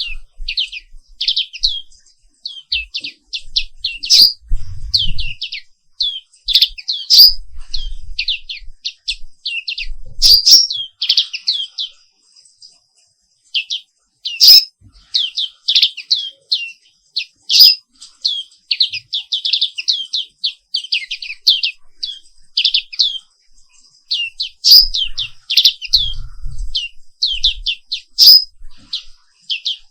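Pleci papua white-eye singing: rapid runs of short, high, downward-sweeping chirps in quick bursts, with a pause of about a second and a half near the middle.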